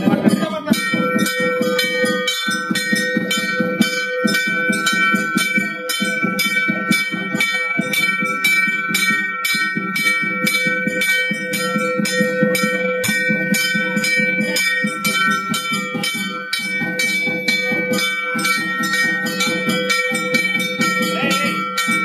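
Temple bell rung rapidly and without pause, about four or five strokes a second, its ring held throughout.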